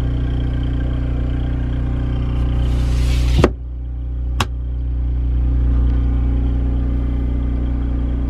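An RV's onboard LP-fuelled generator running steadily with a low engine hum, heard from inside the rig, with two sharp clicks about three and a half and four and a half seconds in.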